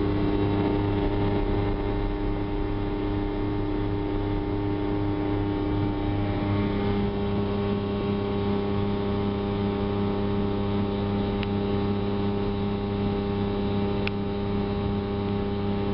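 1979 Volvo Penta 400 outboard motor running at a steady speed under way, an even drone that holds its pitch throughout.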